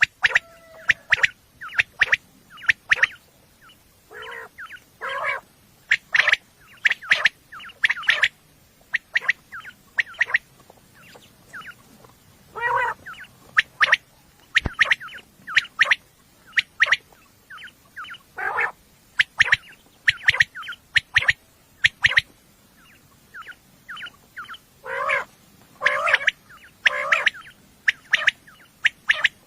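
Quail (batair) calling: many short, sharp call notes in quick irregular runs, with a few longer, lower calls among them. It is a recording of batair calls used to lure quail when hunting.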